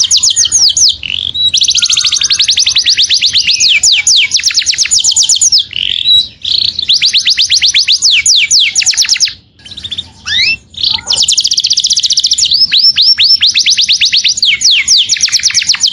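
Canary singing in long, rapid trills of repeated high notes that each sweep downward, in phrases of a few seconds with short breaks between them.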